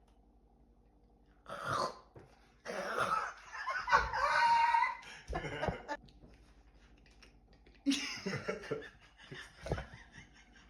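A person making nonverbal vocal sound effects in short bursts, with laughter. There is one long, loud held vocal noise in the middle.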